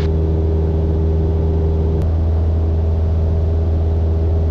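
Steady drone of a Maule MXT-7's piston engine and two-blade propeller in level cruise, a constant low hum with a faint click about two seconds in.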